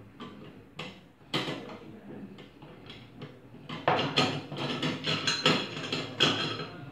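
Metal clamp bars of a welding jig clinking and rattling as they are handled and fitted around a PVC water stop: a few separate knocks, then a busier clatter from about four seconds in.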